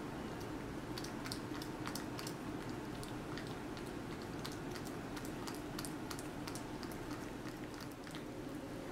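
Persian cat chewing and licking a peeled banana: small, irregular wet clicks and smacks of its mouth, several a second, over a steady low hum.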